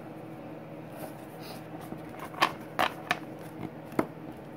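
Pokémon trading cards being handled on a wooden table: card stock flicked and set down, giving about four short sharp taps in the second half over a faint steady hum.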